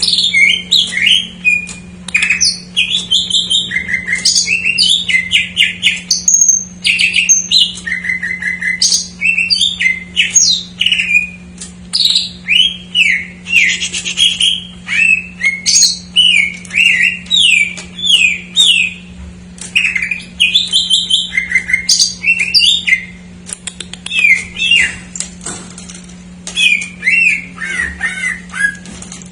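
Green leafbird (cucak ijo) singing a loud, fast, unbroken song of short whistles, quick falling glides and chattering trills. Calls of other birds that it has learned are mixed into the song.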